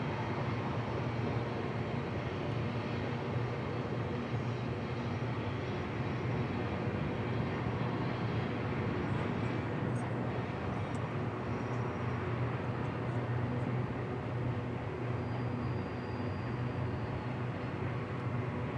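Union Pacific freight train running past with a steady, even rumble and hiss that holds without a break.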